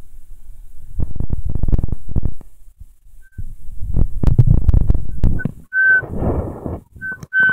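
Rustling and thumping from a handheld phone being moved about, followed by several short, high whistle tones at one steady pitch near the end.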